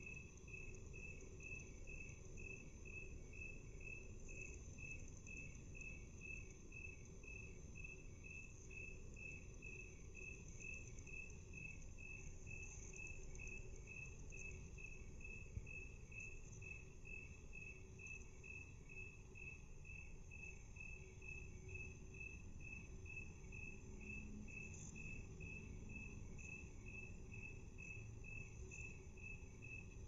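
Cricket chirping, slowed to half speed: evenly spaced chirps at about two a second, faint, over a steady high tone and low background hiss.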